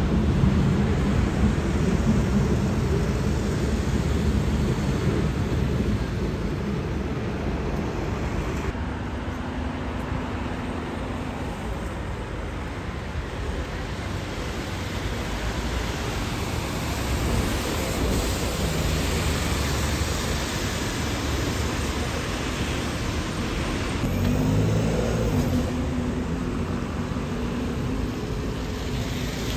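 Road traffic: London buses and cars passing on a busy street, with engine running and tyre noise throughout. Near the end a bus engine's note rises in steps as it pulls away.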